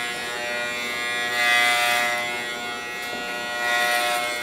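Corded electric hair clippers buzzing steadily as they shear through a man's long hair, growing louder twice, about a second and a half in and again near the end.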